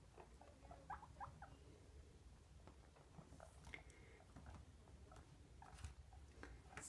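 Faint guinea pig sounds: a few short rising squeaks about a second in, and light clicks and scuffles as the animals move about on fleece bedding.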